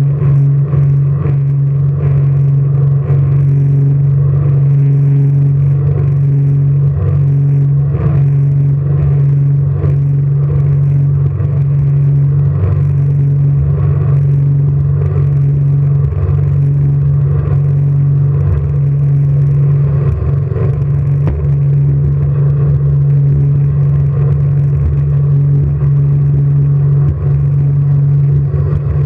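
Jet boat engine running with a steady, unchanging low drone.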